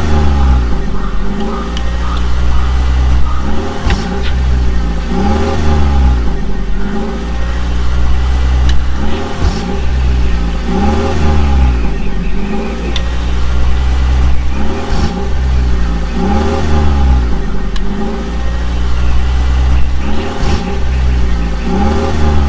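Engine sound with a steady low rumble, revving up and down in pitch every couple of seconds in a repeating pattern.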